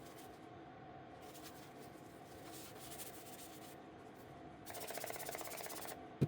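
A fluttering, sputtering spray for about a second near the end, over faint rubbing and a steady hum, followed by a sharp click.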